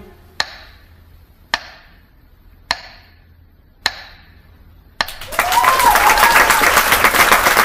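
Four sharp ticks about a second apart, each ringing briefly, as the dance music ends. About five seconds in, loud audience applause breaks out, with a rising-and-falling cheer or whistle in it.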